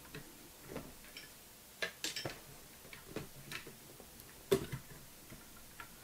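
Small, irregular plastic clicks and taps from an Intel stock CPU cooler's push-pin fasteners being turned and pressed toward the motherboard holes, the loudest about four and a half seconds in; the pins are not catching and the cooler will not seat.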